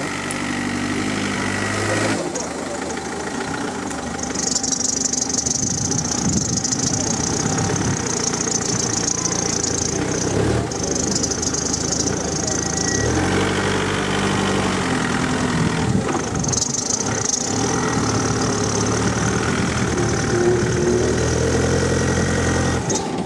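Off-road competition 4x4's engine revving up and down as the vehicle crawls up a steep dirt slope, its pitch rising and falling. A high hiss comes and goes over it several times.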